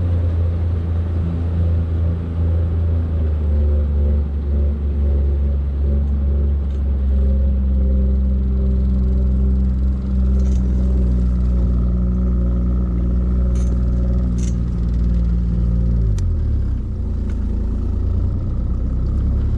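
Boat engine running steadily under way, then throttled back about 16 seconds in, its pitch dropping to a lower idle.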